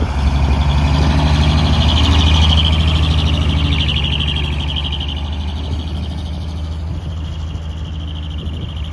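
Heavy truck's diesel engine running low and steady as the truck rolls past at low speed and pulls away, loudest about two seconds in and slowly fading.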